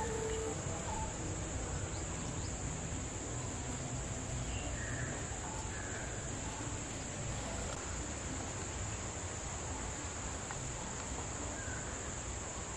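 Steady high-pitched insect drone, with a few faint bird calls.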